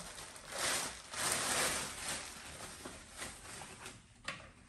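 Plastic packaging wrap crinkling and rustling in bursts as it is pulled off a vacuum mop's charging base, fading toward the end, with one sharp click near the end.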